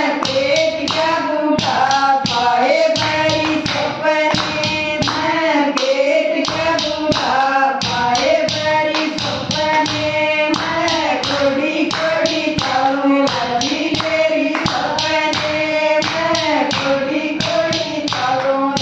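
A group of women singing a devotional bhajan in unison, keeping time with steady hand-clapping.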